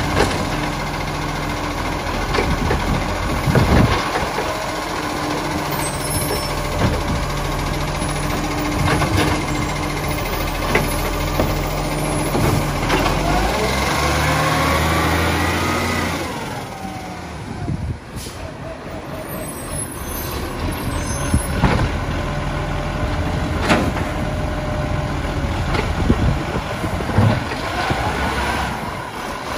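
Iveco Acco side-loader garbage truck running at raised revs while its hydraulic arm lifts and tips a wheelie bin, with knocks of the bin against the hopper. About midway a hydraulic whine rises and falls as the arm cycles, then the engine drops back and the truck moves on to the next bins, with air-brake hisses.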